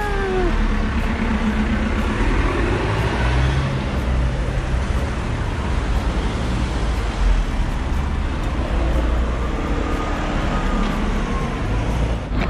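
Street traffic: a car running slowly close by, a steady engine and road rumble.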